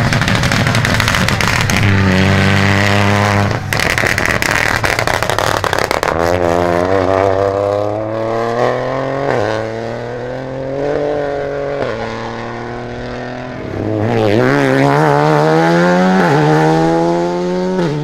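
Rally car engines under hard acceleration, each rising in pitch and then dropping sharply at a gear change, several upshifts in a row.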